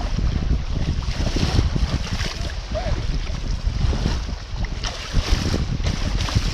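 Wind buffeting the microphone in gusts over the steady wash of small sea waves.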